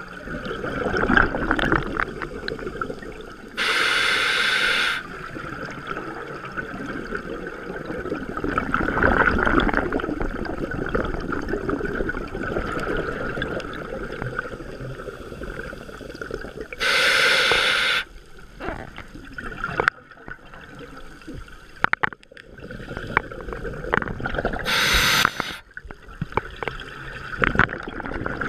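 Scuba diver breathing underwater through a regulator: three long hissing inhalations, each about a second, with the bubbling rush of exhaled air through the regulator in between.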